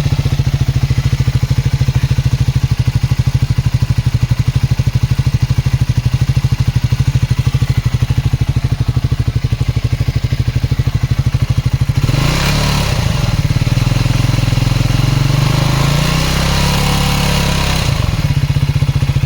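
Triumph Speed 400's single-cylinder engine idling just after starting, with a quick even pulse. About twelve seconds in it is revved for several seconds, then drops back to idle, and the sound stops abruptly at the end. The owner hears an unexplained engine noise since the second service, which the showroom calls normal and he does not.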